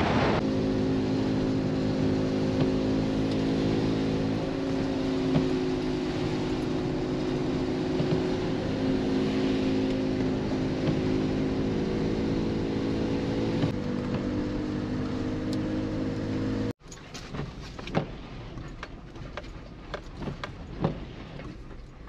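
Car engine and road noise heard from inside the cabin while driving, a steady hum that shifts slightly in pitch about three-quarters of the way through. Then the sound cuts abruptly to a quieter background with scattered light taps and clicks.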